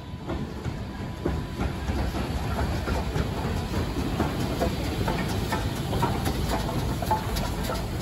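BR Standard Class 9F 2-10-0 steam locomotive passing close by at low speed: a steady low rumble with many irregular clanks and clicks from its wheels and running gear, growing louder over about the first second.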